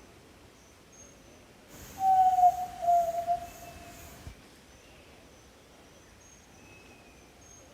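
Jaó-do-sul (southern yellow-legged tinamou) giving one long, low whistle about two seconds in, lasting about two seconds and sliding slightly down in pitch. Faint high repeated chirps and a thin, higher whistle sound in the background.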